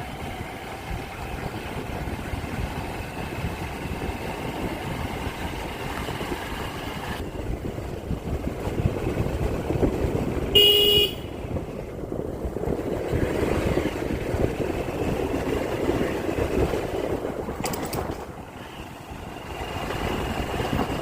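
Running noise of a moving motorbike and road, with a single short horn honk about halfway through.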